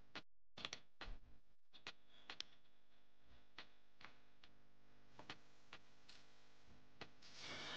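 Near silence with faint, scattered light clicks of small parts being handled, and a soft hiss swelling up near the end.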